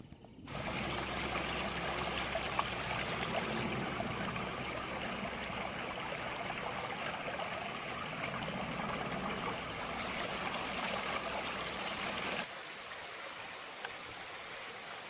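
Water running in a stream, a steady rushing; about twelve seconds in it cuts abruptly to a quieter rush of water.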